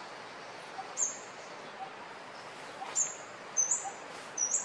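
A small bird chirping: short, high chirps every second or so, coming quicker near the end, over a steady background hiss.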